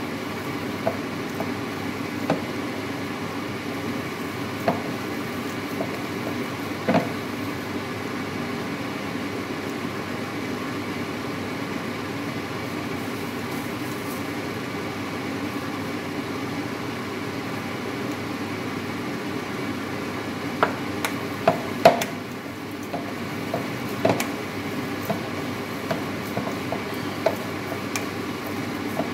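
Hands kneading raw ground meat in a bowl: scattered soft squelches and knocks, with a pause in the middle and a denser run near the end, over a steady background hum.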